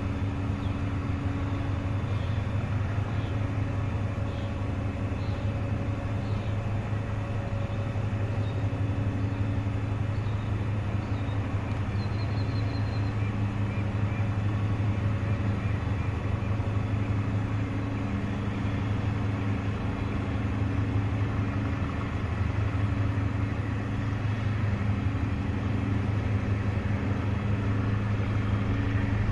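Steady low drone of a large diesel engine, with humming tones that fade in and out above it and a few faint high chirps in the first half.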